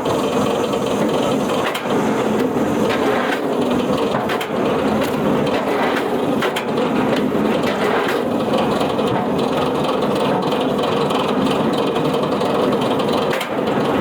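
Wood-processing machinery working on wood: a steady mechanical noise with frequent cracks and knocks of wood.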